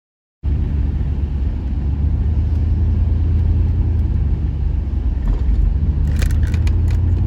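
Vehicle engine running with a steady low rumble, starting abruptly about half a second in; a few light clicks near the end.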